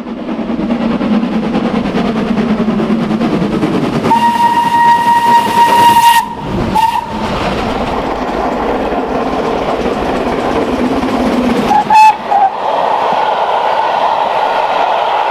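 Steam locomotive running, with its whistle sounding one long steady blast about four seconds in, a short toot just after, and two short toots about twelve seconds in.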